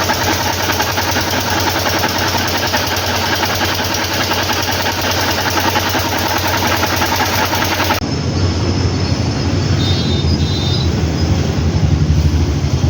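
Motorcycle engine running close by, a loud, fast, steady mechanical rhythm. About eight seconds in it cuts abruptly to a deeper, pulsing engine sound.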